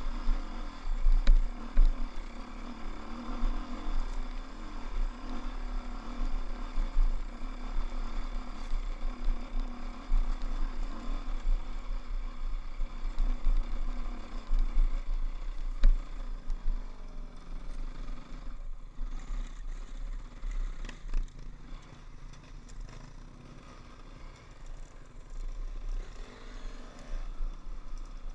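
KTM dirt bike engine running under throttle, heard from the bike itself, over a heavy low rumble of wind and vibration on the camera and a few sharp knocks from the rough trail. About two-thirds of the way through the engine eases off and goes quieter, then picks up again near the end.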